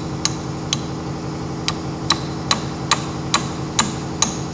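Hammer tapping on steel, evenly paced at about two light metallic strikes a second, driving rusted 3/8 clamp bolts out of a tractor tie rod. A steady hum runs underneath.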